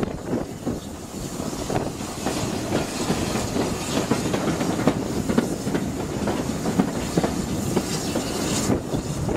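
Heard from the footplate of a moving steam locomotive, most likely 34028, a rebuilt Bulleid West Country pacific: the wheels clatter over rail joints and the running gear clanks in a steady stream of clicks, with a hiss of steam.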